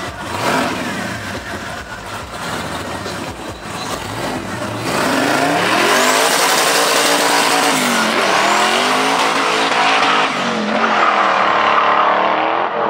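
Twin-turbo Chevrolet Monte Carlo SS engine revving hard, its pitch climbing and falling again several times. It gets louder about five seconds in.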